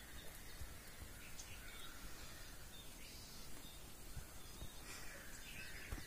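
Faint outdoor ambience: a steady hiss with a few short bird chirps and calls scattered through it, and a couple of soft low thuds.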